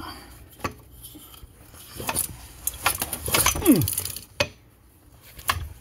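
Metallic clicks and clinks from a Homelite 770D chainsaw's ball drive recoil starter being worked by hand. A short downward-sliding sound a little past halfway is the loudest moment.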